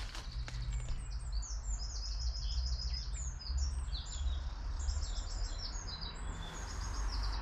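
Small songbirds singing, with many quick repeated high chirps and trills throughout, over a low steady rumble.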